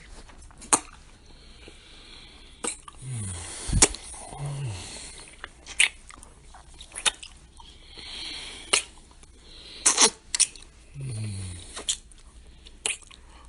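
Kissing and making-out sound effects: about ten sharp lip smacks at irregular intervals, with wet, breathy smooching between them. A few short low hums fall in pitch among the kisses.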